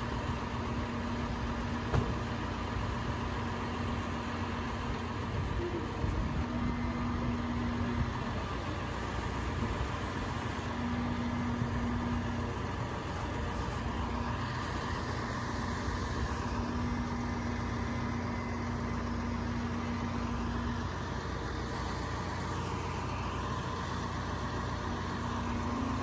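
Truck engine idling steadily, with a steady hum that comes and goes several times.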